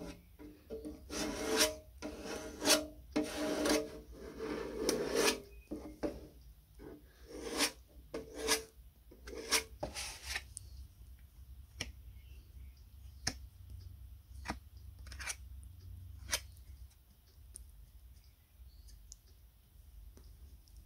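Hand sanding on the primed sheet-metal body of an antique seed planter: about a dozen short, scratchy rubbing strokes. Roughly ten seconds in the sanding stops and only a few light clicks and taps follow.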